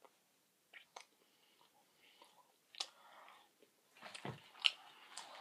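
Close mouth sounds of someone chewing a chocolate candy that she takes for toffee-filled: scattered soft, sticky clicks and smacks, the loudest about four and a half seconds in.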